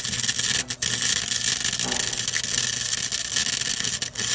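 Electric arc welding: a steady, loud crackling arc over a low electrical hum, broken twice briefly and stopping suddenly near the end.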